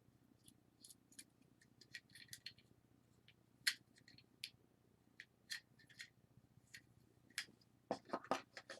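Small parts of a disassembled Nikon 18–55 mm kit lens clicking and tapping as they are handled: scattered light ticks, then a quick run of louder knocks near the end. A faint low hum runs underneath.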